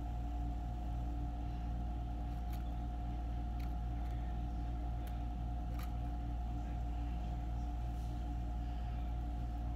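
A steady low machine hum with a constant mid-pitched tone, and a few faint light clicks of metal tweezers handling the soap and dried flowers.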